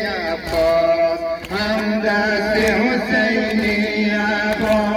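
Voices chanting an Ashura mourning lament (noha), a melodic chant with long held notes.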